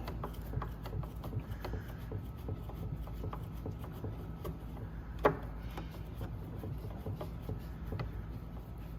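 Small irregular clicks and rubbing of a retaining screw being started and turned into a vacuum tub latch, with one sharper click about five seconds in, over a steady low hum.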